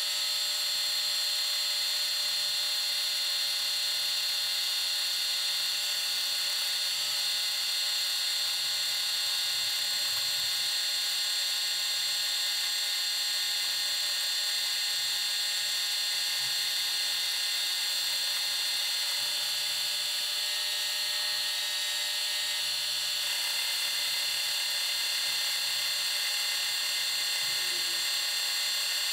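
Bridgeport milling machine running an end mill through a light dry cut across the face of an angle iron, a steady high-pitched whine. The tone shifts slightly about three-quarters of the way through.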